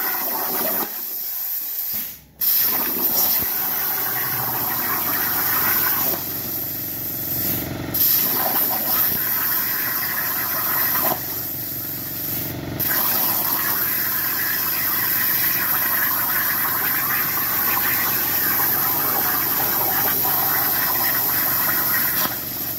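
CNC plasma torch cutting sheet metal: a steady, loud hiss of the arc and its compressed air. It cuts out for a moment about two seconds in, with shorter dips near eight and thirteen seconds.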